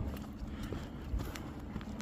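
Footsteps of a person walking on rough forest ground, with irregular small crackles and clicks underfoot over a low steady rumble.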